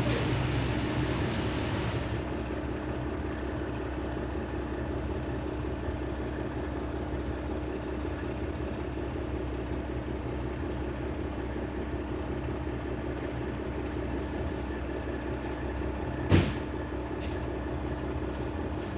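Truck engine idling steadily, a little louder for the first two seconds, with one sharp knock near the end.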